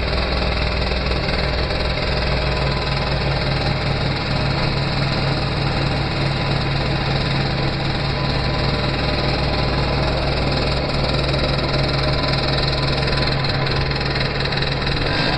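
Gilera Runner scooter engine idling steadily.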